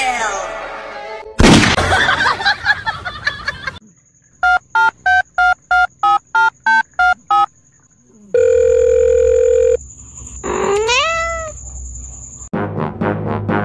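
A string of comedy sound effects laid over a cat clip: a loud hit with a ringing tail, then about eleven quick, evenly spaced electronic phone-like beeps, a steady tone for about a second and a half, and a rising glide that dips at the top. Music comes in near the end.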